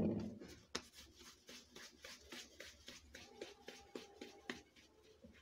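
Hands rolling and pressing a ball of flour-dusted naan dough in an earthenware bowl: soft rubbing with quick light pats and ticks, several a second. A dull knock comes right at the start.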